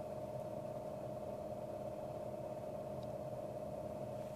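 BedJet bed climate fan running at 50% on its cold setting: a steady white-noise whoosh of moving air with a faint steady hum.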